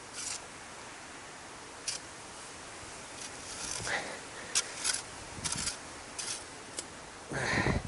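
Scattered short rustles and scrapes over a steady hiss, with a longer, louder rustle near the end.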